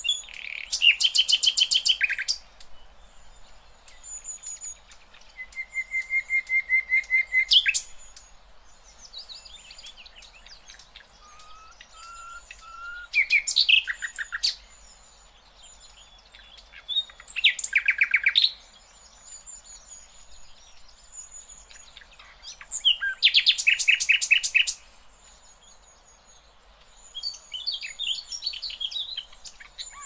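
Common nightingale singing. About six loud phrases of fast repeated notes and harsh rattles come a few seconds apart, with soft, thin whistles in the pauses between them. One series of repeated notes grows louder as it goes.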